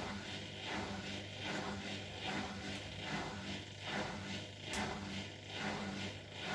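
Bosch Maxx WFL 248Y front-loading washing machine running a wash, its drum turning with a steady motor hum and a rhythmic swish of water and laundry tumbling a little more than once a second.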